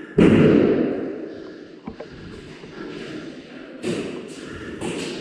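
A sudden loud thump just after the start that fades out over about a second, followed by a sharp click and then a few short, sharp knocks or cracks near the end.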